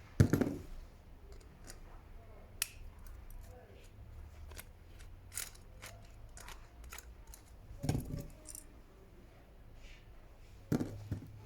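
Small metal parts and hand tools being handled during carburettor repair work: scattered sharp clicks and clinks, with a louder knock right at the start, another past the middle and a third near the end.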